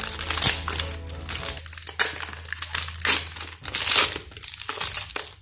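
Metallised plastic candy wrapper crinkling and crackling irregularly as hands pull it open and handle it. Low background music runs under it for the first three and a half seconds or so.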